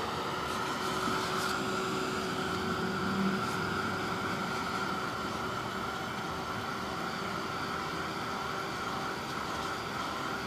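Steady background hum and hiss, like room ventilation, with a couple of faint clicks in the first two seconds.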